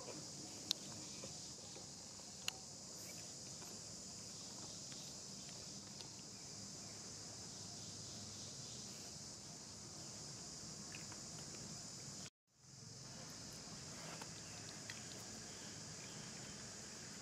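A steady, high-pitched insect chorus drones throughout, with a couple of faint sharp clicks in the first few seconds. The sound cuts out completely for a moment about twelve seconds in and then fades back.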